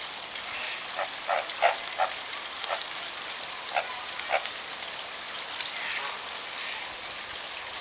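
Greater flamingos calling: about seven short honks in the first half, over a steady hiss.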